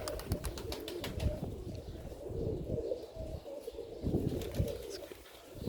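Domestic pigeons cooing in low, pulsing calls, with a quick run of light clicks during the first second and a half.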